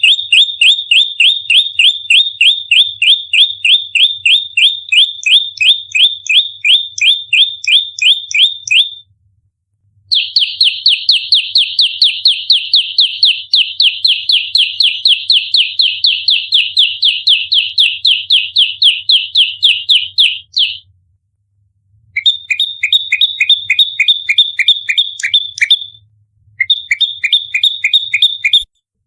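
Prenjak lumut, a prinia, singing its fast combative 'nembak rapat' song: long runs of sharp, evenly repeated high chirps, about five a second, broken by brief pauses about 9 and 21 seconds in and twice near the end.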